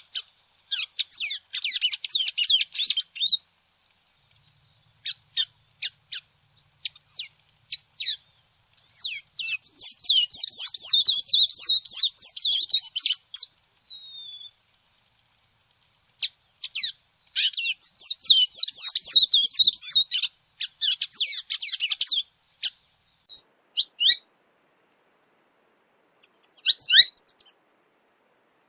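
Songbird singing: three bursts of rapid, high-pitched chirping notes, each a few seconds long, with single chirps between them.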